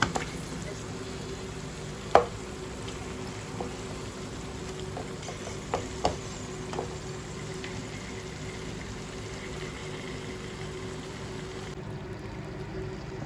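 Chicken curry being stirred in a frying pan: a spatula knocks and scrapes against the pan several times over a steady frying noise, with the loudest knock about two seconds in.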